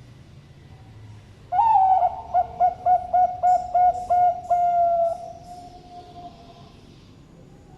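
Zebra dove (Bangkok perkutut) cooing one full song phrase: an opening note, a quick run of about eight staccato coos, then a long drawn-out final note that fades away.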